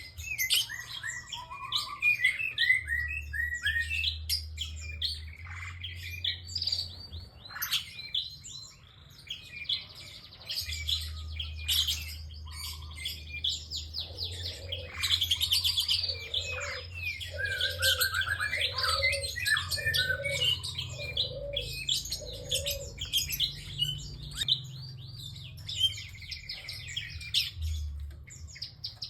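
A single prinia singing continuously: rapid high chirps and trills. About halfway through comes a run of six lower repeated notes. A steady low hum runs underneath.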